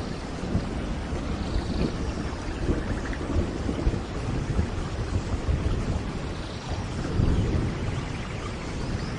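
Steady rain with a deep rolling rumble of thunder, which swells about seven seconds in.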